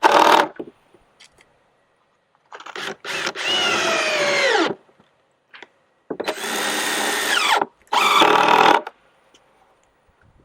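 Power drill driving screws into a plywood nest box, in four short runs. In the longer runs the motor's pitch drops near the end as the screw seats.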